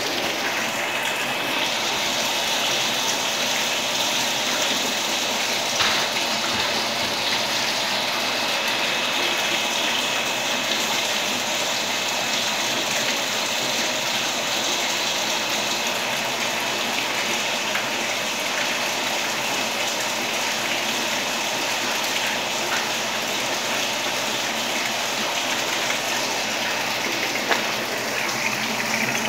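Steady, unbroken rushing of running water.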